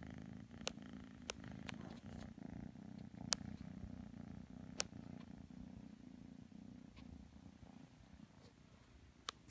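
A kitten purring steadily, a low continuous rumble close to the microphone. A few sharp clicks sound over it, the loudest about three and a half seconds in.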